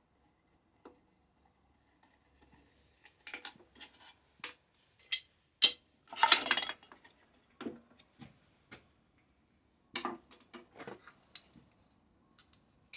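Metal tools and small metal parts clinking and clattering against each other in irregular knocks, with a longer rattle about six seconds in, as hand tools and chainsaw parts are handled.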